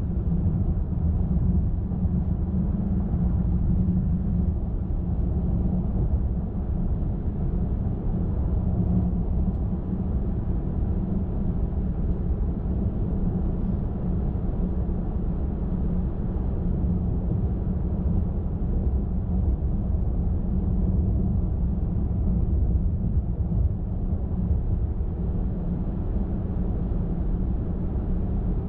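Steady low rumble of a car driving along a highway: tyre and road noise with the engine beneath, unchanging throughout.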